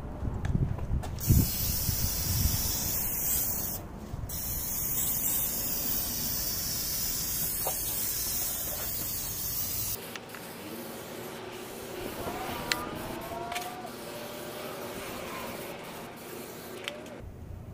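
Aerosol can of Easy-Off oven cleaner spraying onto a heavily oxidized alloy wheel: a steady hiss held for several seconds, broken once about four seconds in, then fainter for the rest.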